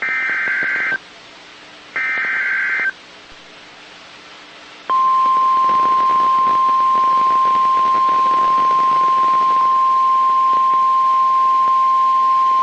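Emergency Alert System signal on NOAA Weather Radio: the last two bursts of the SAME digital header, each a buzzing data screech about a second long, a second apart. About five seconds in, the steady 1050 Hz weather-radio alarm tone starts and holds, marking a warning about to be read.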